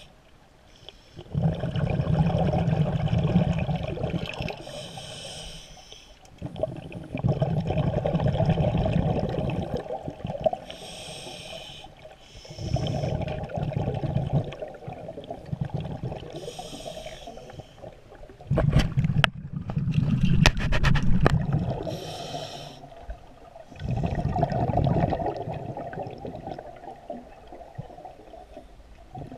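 Scuba diver breathing through a regulator underwater. Each breath has a short hiss on the inhale, then a long rumble of exhaust bubbles, about five breaths in all, with some crackling bubble noise during one exhale past the middle.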